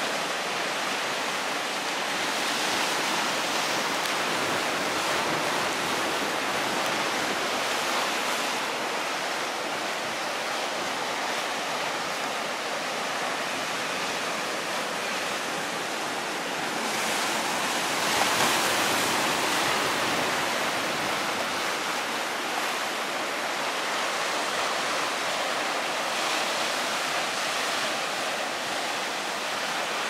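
Ocean surf breaking and washing in: a continuous rush of white water that swells several times and is loudest about two-thirds of the way through.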